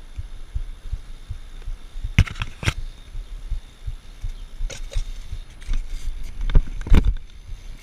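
BMX bike rolling over concrete pavement, heard close from the rider's mounted camera: steady low thudding with about half a dozen sharp clacks as the bike jolts over seams and cracks, the loudest about seven seconds in.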